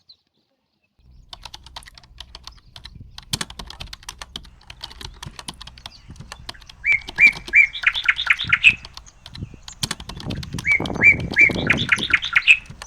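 A songbird singing the same phrase twice, each a few even whistled notes followed by a fast run of higher notes, over scattered light clicks and taps.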